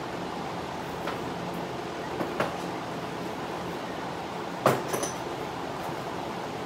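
Large drum fan running steadily, blowing air into an open engine bay, with a few sharp metallic clicks, the loudest about two-thirds of the way in.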